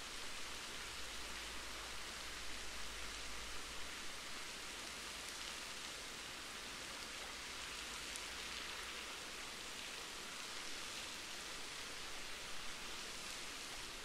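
Awosting Falls waterfall: a steady, even rush of falling water, hissing most in the higher pitches.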